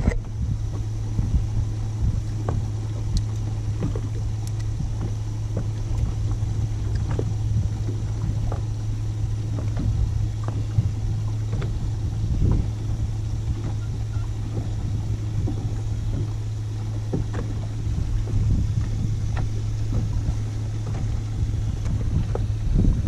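Steady low hum of a boat's motor running, with scattered small knocks and taps on the boat.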